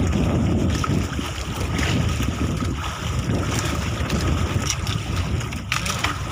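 Wind buffeting the microphone on a small boat at sea, a steady low rumble, with choppy water around the hull.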